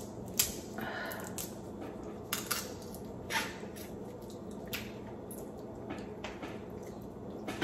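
Scattered small clicks and soft crackles of steamed blue crab shell being picked apart by hand, over a faint steady hum.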